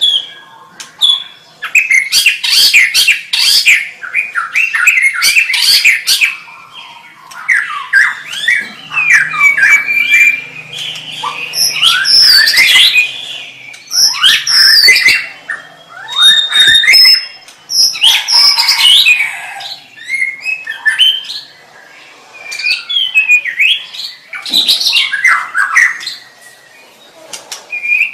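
White-rumped shama (murai batu) singing loudly: rapid, varied phrases of notes sliding up and down in pitch, in bursts of one to three seconds separated by short pauses.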